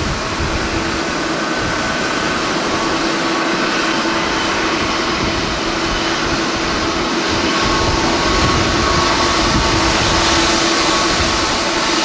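Jet engines of a landing Airbus A320 airliner, a steady rush with a few held whining tones, as it touches down and rolls out along the runway. The sound grows a little louder in the last few seconds.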